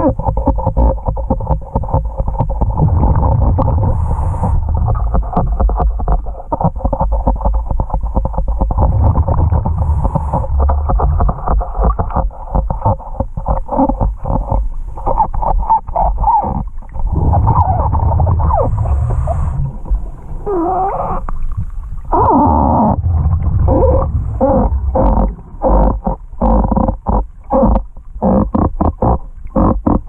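Scuba diver breathing through a regulator, heard underwater: gurgling, rumbling exhaled bubbles and wavering inhale hiss over a steady hum.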